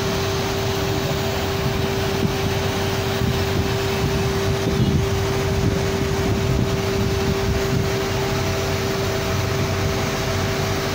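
Truck-mounted crane's engine running steadily: a constant whine over a low rumble.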